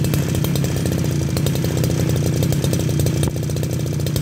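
Kioritz GE3300M brush cutter's 33 cc, 37 mm-bore two-stroke engine running steadily, freshly pull-started.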